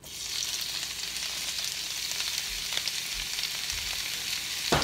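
Torn oyster mushrooms dropped into hot olive oil in a frying pan, sizzling. The sizzle starts suddenly as they go in and then holds steady. A single sharp knock comes near the end.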